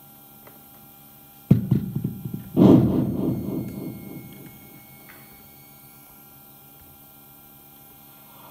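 Steady electrical hum from the SoundFish V2 Bluetooth speaker with its microphone plugged in and the echo effect turned up. About one and a half seconds in, and again about a second later, a thump comes through the speaker, each fading away over a second or two.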